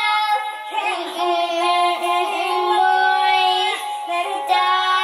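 A young girl singing with long held notes into a pink Bluetooth karaoke microphone, her voice coming amplified through its built-in speaker.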